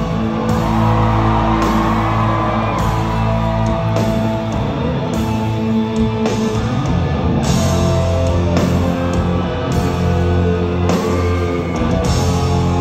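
Live gothic metal band playing loudly, with a male voice singing over sustained keyboard chords, guitars and drums, heard from the audience in a large hall.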